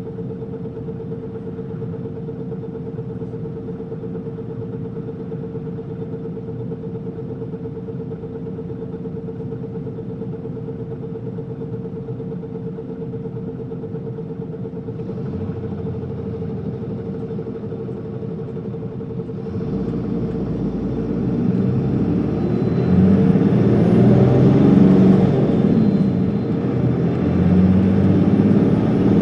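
Inside an Isuzu Erga city bus: its diesel engine idling steadily with a constant hum, then, about twenty seconds in, the engine picks up and runs louder under load as the bus pulls away and accelerates.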